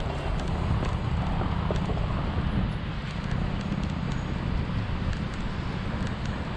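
Oxelo scooter's small wheels rolling over stone paving slabs, a steady low rumble with faint scattered ticks, mixed with wind buffeting the microphone.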